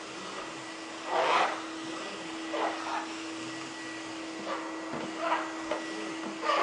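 Vacuum cleaner running with a steady motor hum, with louder rushes of air every second or so.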